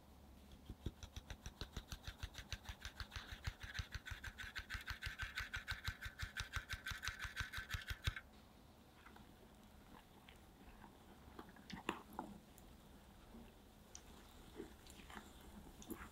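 Fine mesh sieve being shaken and tapped over a glass bowl to sift flour and green tea powder, a rapid, even tapping of about five to six beats a second that stops suddenly about eight seconds in. After it come a few light clicks and knocks.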